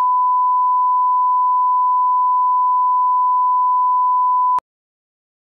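Steady 1 kHz line-up test tone accompanying SMPTE colour bars, one unwavering pure beep that cuts off suddenly with a click near the end, leaving silence.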